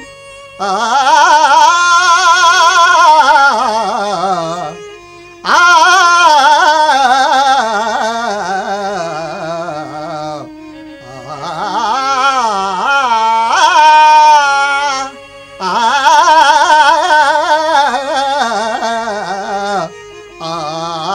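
A male harikatha singer singing long, wavering melismatic phrases of a Carnatic-style verse, about four phrases with short breaks between them, over a steady drone.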